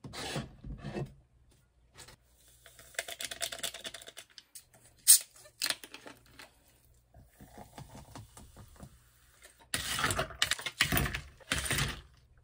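Kitchen handling while a cherry ade is made: a bottle of plain sparkling water is opened with a sharp click about five seconds in, then poured into a tall glass over cherry syrup, fizzing. Near the end, loud crinkling of a plastic bag of dried orange slices.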